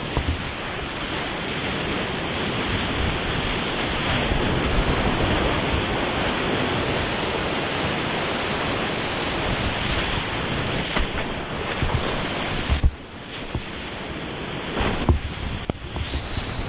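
Rushing whitewater of a river standing wave, with wind buffeting the action camera's microphone just above the surface. The rush is steady, then drops suddenly about thirteen seconds in and turns choppy, with splashes and knocks, as the rider wipes out in the whitewater.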